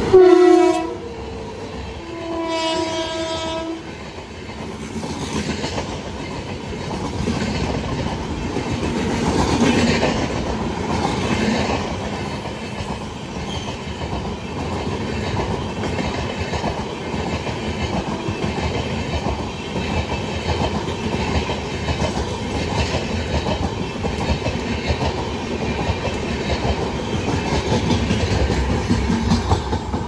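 WAP-7 electric locomotive sounding its horn twice, a loud blast of about a second at the start and a second blast about two seconds later. Then its LHB coaches roll past at speed with steady wheel clatter over the rail joints until the rear of the train goes by.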